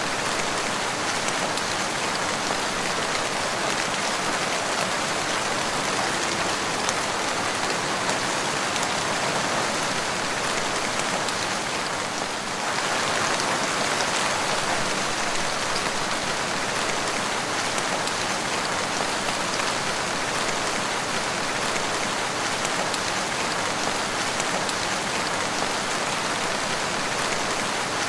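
Steady rain falling, an even continuous hiss of rain on a surface, with a brief slight dip about twelve seconds in.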